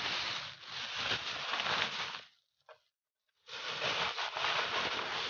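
Dry, crackling rustling and scraping of chopped banana-leaf and rice-bran mushroom substrate being mixed, in two stretches about a second apart.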